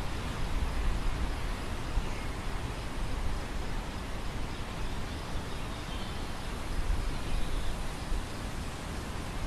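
Wind over an open grain field: a steady rushing noise with gusts of low rumble on the microphone that swell and fade.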